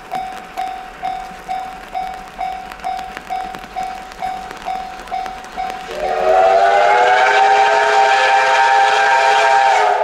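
Level-crossing alarm ringing, a short electronic bell tone repeating about twice a second. About six seconds in, the approaching double-headed steam locomotives C57 1 and D51 200 sound a loud, long steam whistle of several tones at once, which holds for about four seconds and drowns out the crossing bell.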